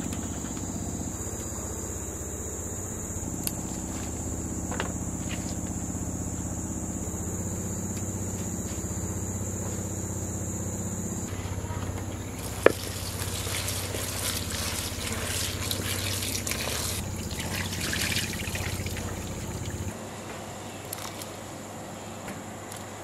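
Insects chirring in one steady high note over a low hum. About halfway in the chirring stops, a sharp click follows, and then several seconds of water pouring and trickling.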